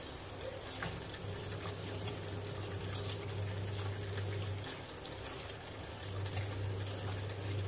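Wet squelching and slapping of raw chicken pieces as they are mixed by hand with egg, soy sauce and spices in a steel bowl to marinate them. A steady low hum runs underneath and breaks off for about a second past the middle.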